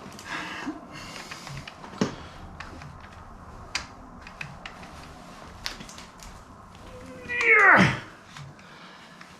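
A cat meows once near the end, a single loud call that falls steeply in pitch. Before it come a few sharp light clicks and knocks.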